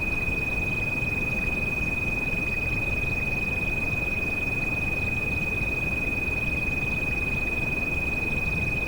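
A steady, high, pure sine tone used as a tinnitus sound-therapy frequency, held unchanging over a continuous hiss of rain noise.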